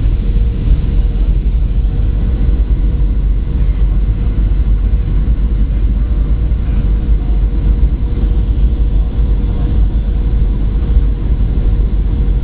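Cabin noise inside a Boeing 737-800 airliner descending on approach: a loud, steady rumble with a faint steady hum above it.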